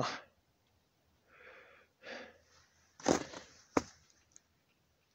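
Rustling and handling noise as someone climbs into a car's back seat, with a sharp knock a little after three seconds in and a quick, sharper click just after it.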